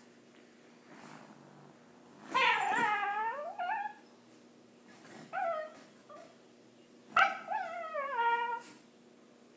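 A dog making weird noises: three drawn-out vocal calls that waver and fall in pitch. There is a long one about two seconds in, a short one in the middle, and another long one near the end.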